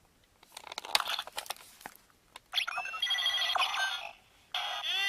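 Electronic sound effects from the small speaker of a Zyuoh Changer Final transformation toy, a ringing, warbling jingle with steady beeping tones. It is preceded by a second or so of plastic clicks and rattles from the toy being handled and its buttons pressed.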